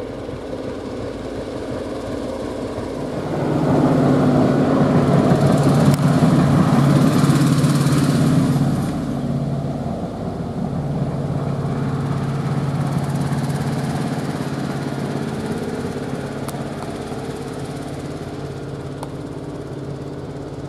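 Diesel engine of a self-propelled railway maintenance machine running as it travels past on the track, a steady engine note that is loudest from about four to nine seconds in and then slowly fades as it moves away.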